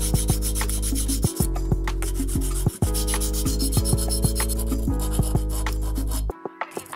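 Background music with a steady beat, over a strip of sandpaper rubbed back and forth by hand along the cut edge of a metal bar. The music stops abruptly near the end.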